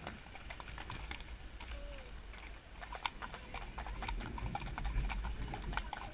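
Several horses' hooves clip-clopping on a tarmac road, a dense irregular patter of sharp clicks, over a low rumble that grows louder about four seconds in.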